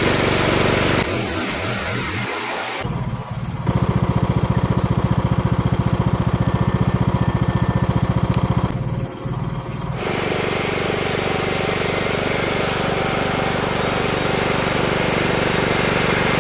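Riding lawn mower engine running while it mows tall grass with circular saw blades fitted under the deck. The sound changes abruptly a few times: from about 4 to 9 s it is a steady, evenly pulsing engine note, and from about 10 s it turns hissier and fuller as the mower cuts.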